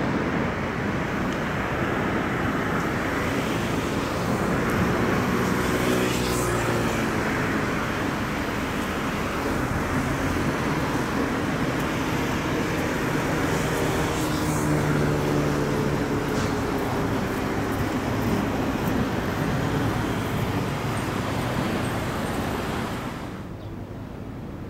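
Steady road-traffic noise, with a vehicle passing by twice, about six seconds in and again around fifteen seconds in, its engine pitch rising and falling as it goes by. Near the end the noise drops to a quieter, thinner background.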